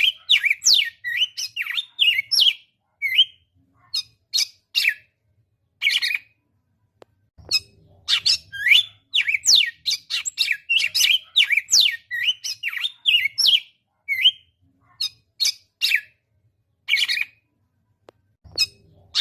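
A songbird singing quick runs of sharp, downward-sweeping chirps and whistles. The runs are dense for the first two or three seconds and again from about eight to thirteen seconds in, with scattered single notes and short pauses between.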